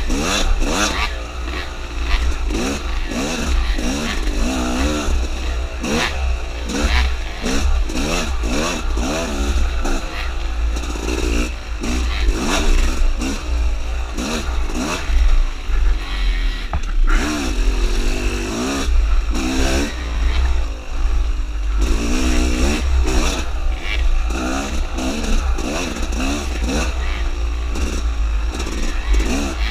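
Dirt bike engine under way, its revs rising and falling again and again as the throttle is worked through the turns. A constant low rumble lies underneath, with scattered knocks and rattles from the bike bouncing over the trail.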